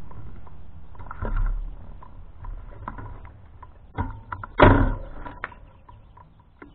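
Wind rumble on the microphone of a cheap bike-mounted camera, with scattered clicks and rattles and one louder rushing burst about two-thirds of the way in, as the bicycle rolls across pavement.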